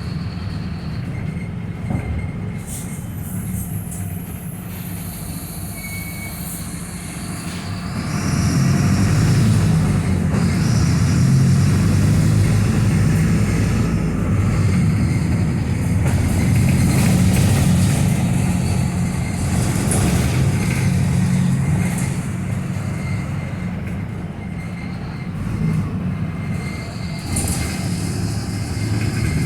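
Mercedes-Benz OF-1721 BlueTec 5 bus's four-cylinder diesel engine running on the move. Its drone grows louder about eight seconds in, holds for around fourteen seconds, then eases back.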